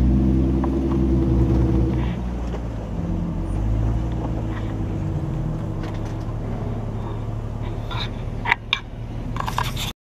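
Jeep engine running at crawling speed over rock, its low note swelling a little now and then, with a few sharp knocks and clatters near the end before the sound cuts off abruptly.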